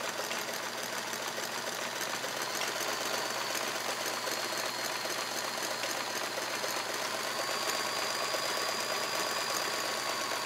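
Kenmore 158.1430 all-metal sewing machine running steadily at speed, stitching a very short zigzag close to a satin stitch, with a faint steady motor whine under the needle's clatter.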